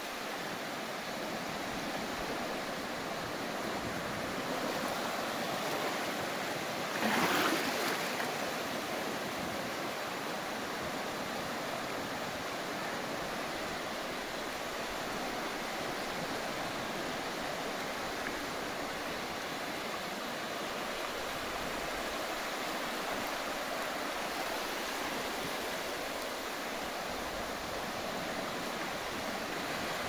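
Sea waves washing onto a sandy beach in a steady surf, with one wave breaking louder about seven seconds in.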